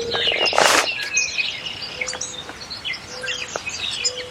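Several birds singing and chirping, with short whistled notes and a repeated low steady note. About half a second in, a brief loud rushing noise stands out, and a few faint clicks come later.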